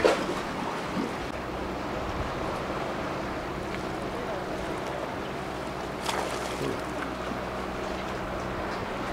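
Outdoor sea ambience: a steady wash of water and wind around a concrete breakwater, with a low steady hum beneath it. Short sharp sounds come right at the start, about a second in and about six seconds in.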